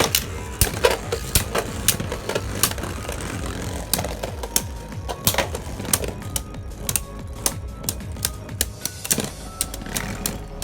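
Two 3D-printed Beyblade spinning tops clashing in a stadium: a rapid, irregular run of sharp plastic clicks and knocks, with a hard hit at the start.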